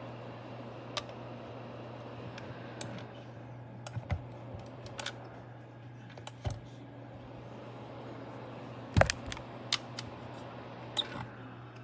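Small ceramic space heater's fan running with a steady low hum, with scattered light clicks and taps on top, the loudest about nine seconds in.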